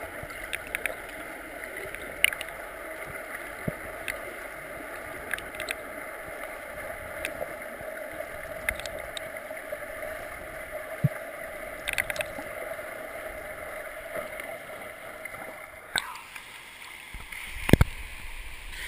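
Muffled underwater noise of a swimming pool picked up by a GoPro in its waterproof housing: a steady hiss with scattered sharp clicks. Near the end the sound changes abruptly as the camera comes up to the surface, followed by one loud thump.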